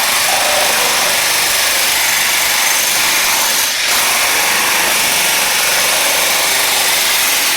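Electric jackhammer running continuously as it breaks up floor tile and glued-down flooring, a dense steady hammering with one brief dip about halfway through.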